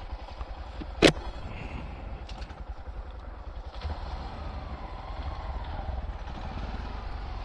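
Honda Monkey's small single-cylinder engine running at low speed, heard through a low steady rumble. A sharp click about a second in is the loudest sound.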